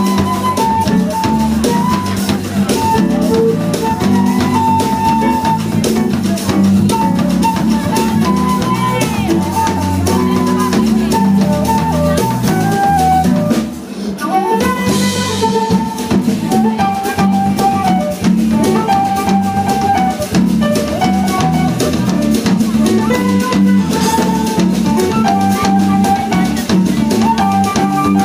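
A live band playing a baião: drum kit and electric bass under a melody line of held notes, with a brief break in the groove about halfway through.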